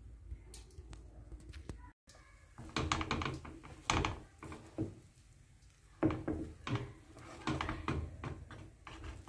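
Wooden spoon stirring cooked rice and peas in a pan, knocking and scraping against the pan in several bouts of short clatter starting about three seconds in.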